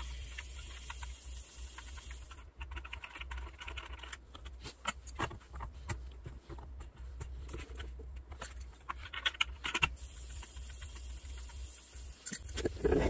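Scattered light clicks and taps of an adjustable wrench and fingers working the compressor's pressure regulator fitting and plastic knob, over a faint steady low hum.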